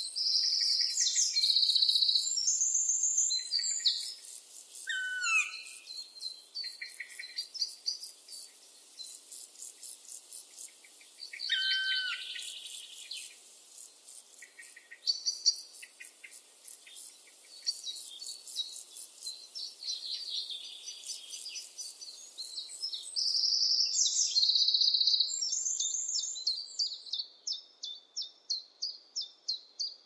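Several forest songbirds singing over one another, with a fast, high ticking running underneath until about three-quarters through. Two falling whistled phrases stand out, near 5 s and near 12 s, and near the end one bird repeats a quick note about a dozen times.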